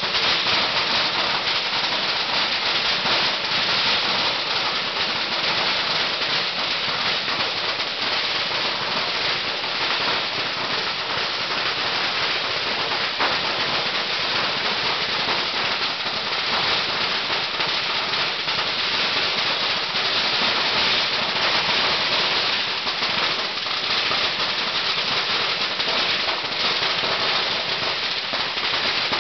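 Strings of firecrackers crackling in a dense, unbroken run of rapid pops.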